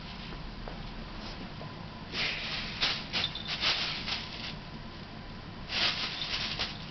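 Thin plastic bag crinkling and rustling in bursts as a cat swats and grabs at it, one spell about two seconds in and another near the end.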